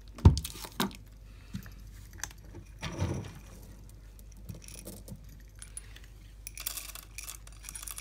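A cat eating dry kibble from a bowl: scattered crunches and the clink of kibble against the bowl. There is a sharper knock just after the start and a denser run of clinking near the end.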